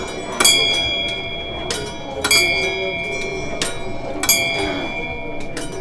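Small bell on a turning Tibetan prayer wheel, struck by the wheel once per revolution: three clear rings about two seconds apart, each left to ring on, with fainter knocks between the strikes.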